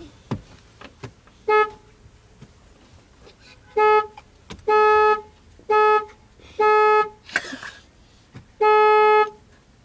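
Car horn sounded six times in uneven beeps, pressed on and off by a toddler. The first beep is short, about a second and a half in. The other five come in a looser run from about four seconds on, each half a second to nearly a second long, all at one steady pitch.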